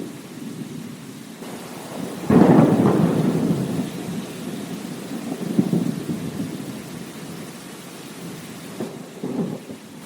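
Steady rain with thunder: a loud rolling rumble breaks about two seconds in and fades away over several seconds, and a shorter, fainter rumble comes near the end.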